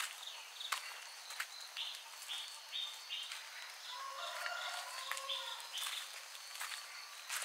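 A bird calling a quick run of short, repeated high notes, over footsteps on a path at an easy walking pace and a steady high trill of crickets. About four seconds in, a lower drawn-out call from some other animal or a distant voice lasts for a second or so.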